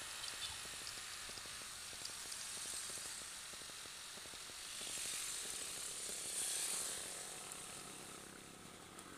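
Steady hiss of wind rushing over a microphone that has come loose while riding a motorcycle, swelling about five to seven seconds in; the detached mic leaves the ride's sound muffled and unclear.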